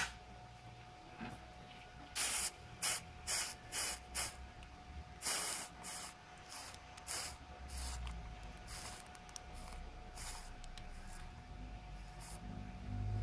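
Hot soldering iron tip wiped across a wet cellulose tip-cleaning sponge, sizzling in about a dozen short hissing bursts as the water on the tip turns to steam. The bursts are thickest in the first half and thin out later.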